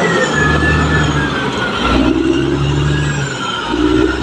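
Caterpillar D6R XL crawler bulldozer's diesel engine running under working load, its note shifting up and down every second or so, with a high whine gliding down in the first second or two.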